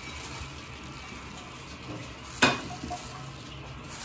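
Clear plastic bags rustling and crinkling as they are handled, with one sharp knock about two and a half seconds in.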